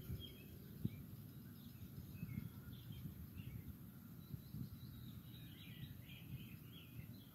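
Breeze buffeting the microphone in a low, uneven rumble, with faint bird chirps scattered over it and a small cluster of chirps near the end.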